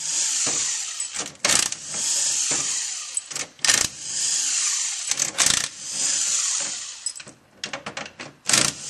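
Hand-held power driver running in short bursts of about a second, four times, as it backs out the bolts holding the top half of an automatic transmission valve body. Between the bursts, loose steel bolts click and clink against the metal parts and each other as they are pulled out and gathered, with a flurry of clinks near the end.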